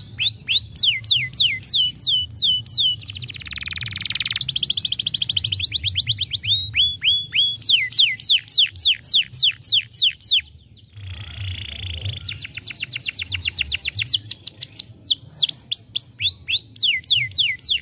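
Canary singing a continuous song of rapid repeated notes that sweep downward, switching between trills at different speeds and pitches, with fast buzzy rolls about three seconds in and again near eleven seconds, and a brief pause just before the second roll.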